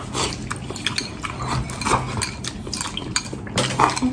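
Eating at the table: chopsticks clicking against a small porcelain bowl while food is chewed, with a slurp from the bowl near the end.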